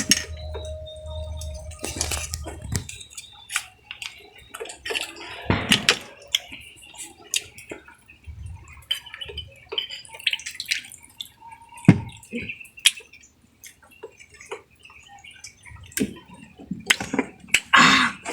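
Scattered clicks and knocks of oyster and clam shells being handled, with small wet drips, during a shellfish meal. A few sharper knocks stand out, about five seconds in, near the middle and near the end.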